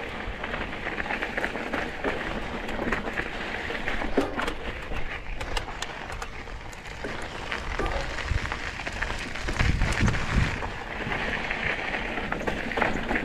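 Mountain bike tyres rolling over a rocky dirt and gravel trail, with a steady crunch and many small clicks and rattles from the bike over bumps. A few heavier low thumps come about ten seconds in.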